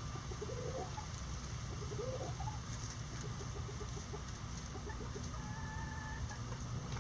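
Bantam chickens clucking: two short rising clucks, about half a second and two seconds in, over a steady low rumble in the background.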